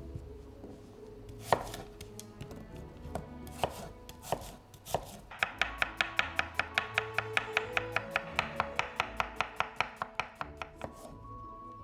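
Knife chopping on a cutting board: a few separate cuts, then a fast, even run of about five chops a second that stops shortly before the end.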